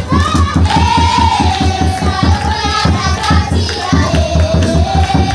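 Children singing together to a fast, steady beat, with hand clapping.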